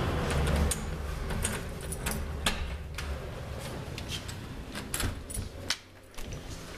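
Key clicking and scraping in a door lock, a run of sharp separate clicks, then the doorknob turning and the door opening.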